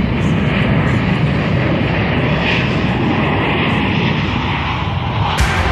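A steady, loud rushing rumble with no clear pitch, like a passing aircraft; music starts near the end.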